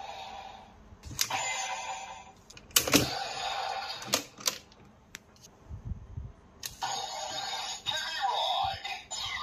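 DX Legend Driver toy belt playing its electronic sound effects and music through its small built-in speaker, with sharp plastic clicks as cards are loaded and the driver's parts are worked. There is a brief pause about halfway, and a gliding electronic tone near the end.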